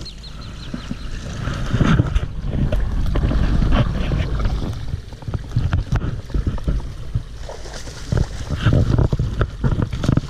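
Wind buffeting the microphone in uneven low rumbles, with scattered knocks and rustles of handling.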